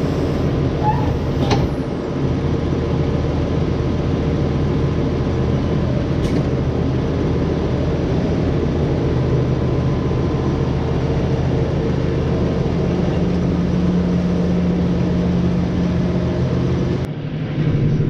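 New Holland farm tractor's diesel engine idling steadily, with an even low drone.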